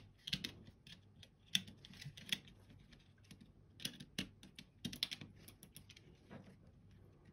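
Small plastic parts of a computer mouse clicking and tapping against each other as they are handled and fitted back into the shell, in irregular clusters of sharp clicks.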